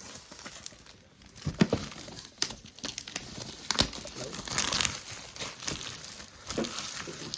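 Packaging crinkling and tearing as a trading-card gift box is opened by hand, with a few sharp knocks of the box being handled.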